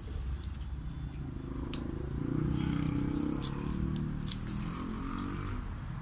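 A low engine hum that swells about two seconds in and fades toward the end, with two sharp clicks.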